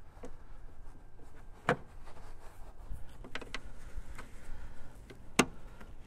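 A few sharp clicks of body clips being worked off a Jeep Wrangler JK's body tub rail: one about a second and a half in, two quick ones past three seconds, and a loud one past five seconds.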